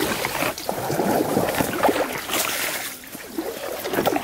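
Mangrove branches and leaves rustling and scraping against the kayaker and kayak, with irregular crackles and knocks from a hand grabbing the branches to pull the boat through.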